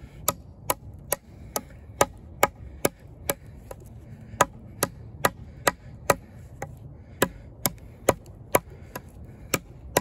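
Kizer Justice II fixed-blade knife with a D2 steel blade chopping into a piece of wood: a steady run of sharp strikes, a little more than two a second.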